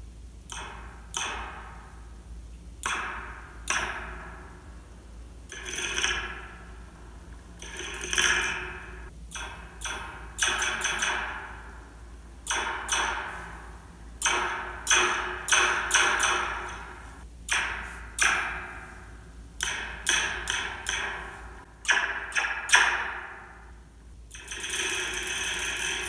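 A metal slinky, stretched out and struck again and again with a metal fork, heard through a contact microphone clipped to its coils. Each strike gives a springy, laser-like zap that rings out for about a second, about two dozen strikes at an irregular pace, sometimes two or three in quick succession. Near the end the separate strikes give way to a steadier metallic rattling.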